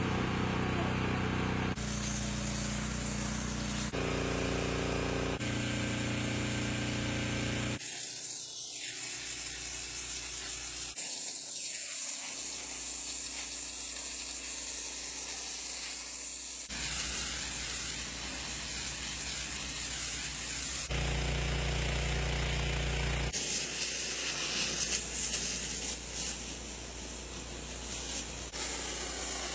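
Pressure washer blasting loose paint off brick masonry: a steady hiss of the water jet over the hum of the machine. The sound changes abruptly every few seconds.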